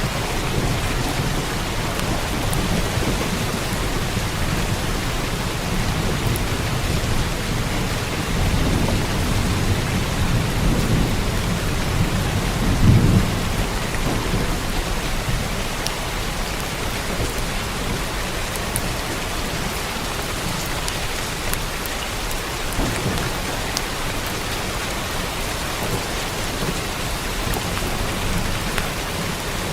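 Steady heavy rain falling on a roof, with thunder rumbling low underneath. The thunder swells from about eight seconds in to a loudest peak at about thirteen seconds, then fades back into the rain.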